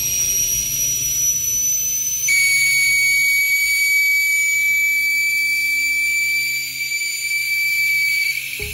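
Steady high-pitched whistling tone that drops to a lower pitch about two seconds in, holds, and stops near the end, over a low steady hum.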